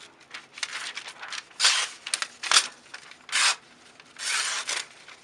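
A 1084 high-carbon steel knife blade being drawn across something to test its edge: several short rasping strokes, roughly a second apart.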